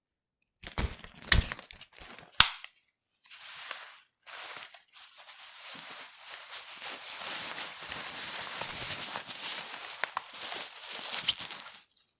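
Umbrella being handled: a few sharp snaps and clicks in the first couple of seconds, then about eight seconds of continuous rustling of the canopy fabric, with small clicks in it.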